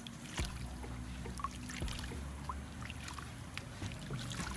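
Water sloshing and dripping as hands squeeze and knead palm nut pulp in a bowl of warm water, working the oil and fibre free of the kernels. It comes as irregular small splashes and drips.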